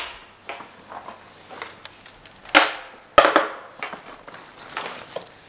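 Sharp knocks of small objects being put down on a wooden table as a backpack is emptied, the loudest two about halfway through and half a second apart, with soft rustling and handling of the bag between.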